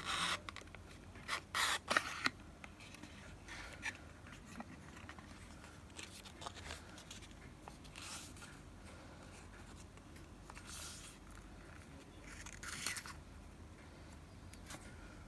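Close handling of a pen and its packaging: scattered scrapes and rustles with a few small clicks, loudest in the first two seconds.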